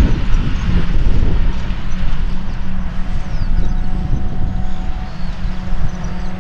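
Claas Jaguar 950 forage harvester chopping grass and blowing it into a silage wagon, its engine running steadily under load together with the Fendt tractor pulling the wagon alongside. A steady, loud low drone that eases a little in the second half.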